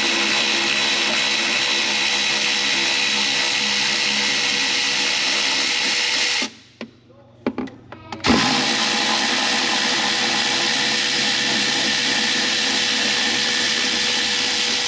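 Handheld power tool spinning out intake-manifold bolts: a steady whir in two long runs, with a break of about two seconds around the middle that holds a few clicks.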